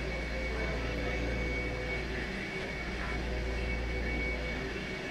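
Steady machine hum, with a faint high whine over it, unchanging throughout.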